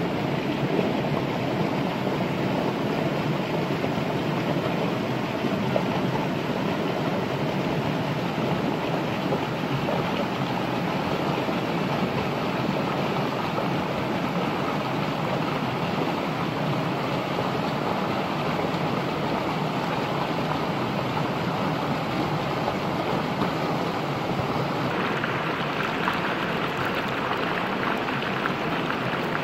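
Steady rushing noise of flowing water. Near the end a brighter crackling hiss comes in as a centipede sizzles on a hot, wet stone slab.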